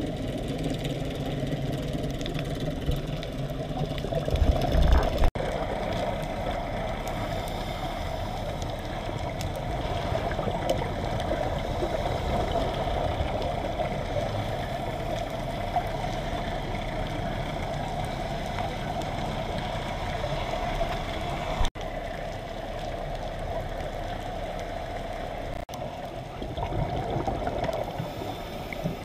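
Underwater ambience picked up by a diving camera: a steady muffled rushing hum, with a brief louder low rumble about four to five seconds in.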